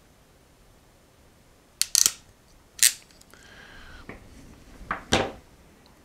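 Ratcheting crimp tool clicking as its jaws close on a small connector pin and crimp it onto a stripped wire: a quick cluster of sharp clicks about two seconds in, another click near three seconds, and two more near five seconds.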